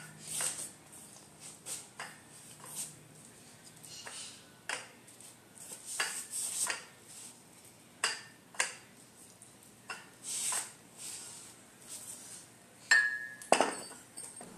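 Iron weight plates on a dumbbell clinking against each other with each lift, a short metallic clink every second or so. Near the end, two loud metal clanks with a brief ring as the dumbbells and plates meet the floor.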